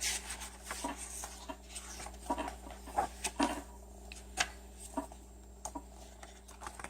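Paper rustling and soft taps as the pages of a handmade junk journal are turned and handled, with a few sharper taps scattered through it.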